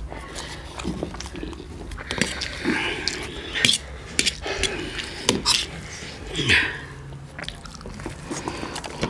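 Two people eating spicy instant noodles: slurping and chewing, with a fork clicking against a plate now and then.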